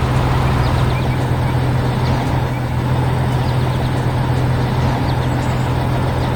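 Heavy construction-vehicle engine sound effect running steadily at a constant low hum, with no change in pitch.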